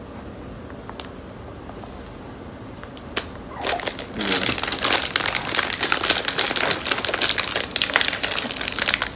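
Plastic snack bag of strawberry popcorn crinkling as it is handled and pulled open, starting about three and a half seconds in and going on without a break, after a couple of single clicks.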